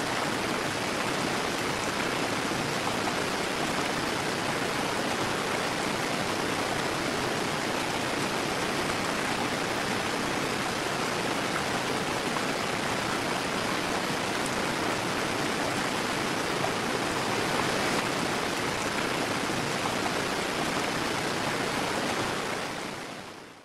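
Multnomah Falls pouring: a steady rush of falling water, fading out near the end.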